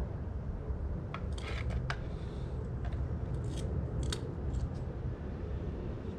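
Short crisp crinkles and snaps of PTFE plumber's tape being pulled off its roll and wrapped around plastic valve threads, clustered in the first few seconds, over a steady low rumble.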